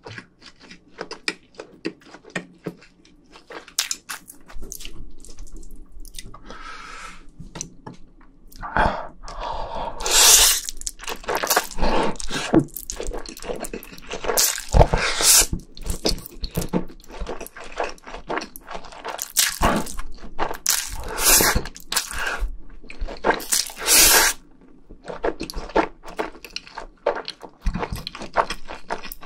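Close-miked wet chewing of instant stir-fried noodles. From about a third of the way in come repeated long, loud slurps of noodles, with chewing between them.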